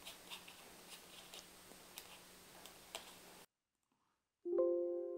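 A few faint clicks over quiet room hiss, then the sound cuts out completely. About four and a half seconds in, a single pitched musical tone starts suddenly and rings on, fading slowly.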